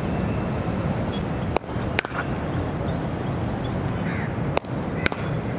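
Cricket ball hit by a bat in net practice: four sharp knocks, in two pairs about half a second apart, over a steady low background noise. Faint bird chirps.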